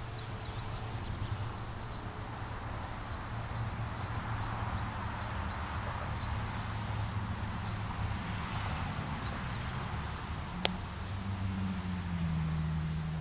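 Faint, short high chirps from juvenile barn swallows over a steady low rumble like a vehicle engine, which settles into a steadier low tone near the end. A single sharp click about ten and a half seconds in.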